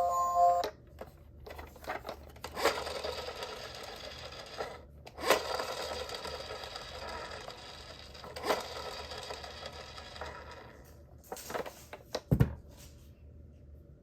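A toy minicar rolling along, its small wheels and gears making a steady whirr, with a few sharp clicks and knocks. The whirr fades out about eleven seconds in, followed by two more knocks.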